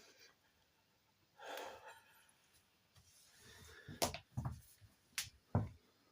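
Handling noises: a brief soft rustle, then four short knocks and clicks with a dull thump to them, close together near the end.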